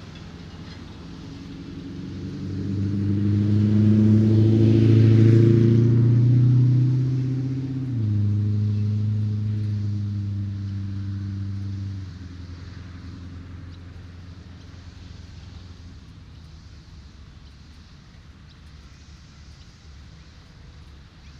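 A motor vehicle driving past on the road: its engine hum and tyre rush swell up, drop in pitch about eight seconds in as it passes, then fall away after about twelve seconds, leaving a faint steady background.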